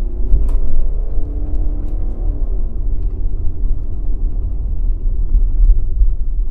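Jeep Cherokee driving along a gravel dirt track, heard from a camera on its hood: steady, heavy low road and wind noise, with the engine note rising and falling softly underneath. A couple of sharp ticks come about half a second and two seconds in.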